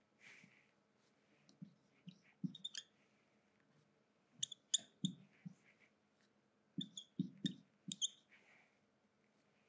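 Marker pen writing on a whiteboard: irregular clusters of short taps and brief squeaks as symbols are stroked out, with pauses between groups.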